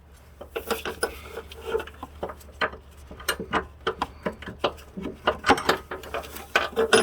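Metal hand tools clicking and clinking against a bolt as an engine-mount bracket screw is worked loose, in many short irregular clicks that come faster in the second half.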